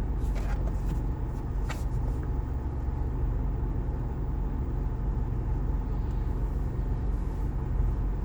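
Truck idling with the air conditioning running, heard from inside the closed cab as a steady low rumble, with a few faint clicks in the first two seconds.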